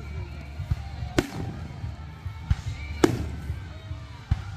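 Aerial fireworks going off: two sharp bangs about a second and about three seconds in, with fainter deeper thuds between them over a steady low rumble.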